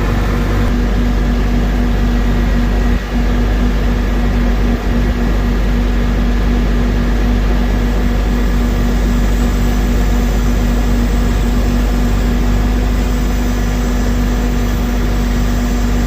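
Heavy diesel truck engine running steadily with a constant low drone and a steady hum over it.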